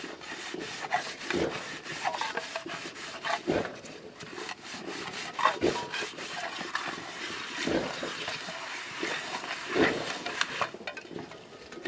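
Hand rubbing and scraping around the inside of a shallow metal bowl with a gritty wet mixture: a continuous scratchy rub in uneven strokes, with a louder scrape every couple of seconds.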